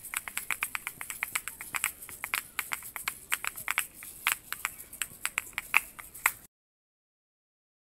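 Two pairs of asalatos (kashaka) played together in a 3:4 polyrhythm: fast, clacking strikes of the shells against each other with a rattle of the filling. The playing cuts off suddenly about six and a half seconds in.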